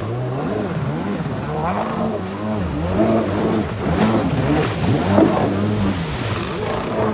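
Two-stroke engine of a 1991 Yamaha Superjet stand-up jet ski with a dual-carb motor, revved up and down over and over as it is ridden, its pitch rising and falling about once a second.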